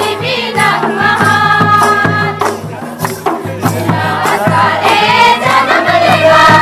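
Folk dance music: several voices singing together over a steady beat, with rattling percussion.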